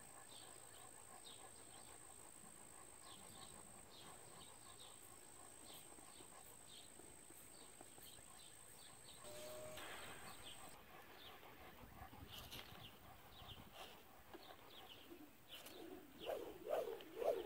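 Quiet outdoor ambience of small birds chirping over and over, with a steady high-pitched whine that stops about two-thirds of the way through. Near the end a dove starts cooing in a quick run of low calls.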